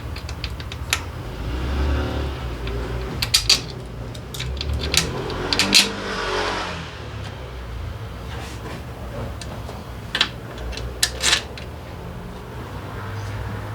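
Hand tools and metal parts clicking and knocking against each other, with some scraping and rustling in between, over a low steady hum.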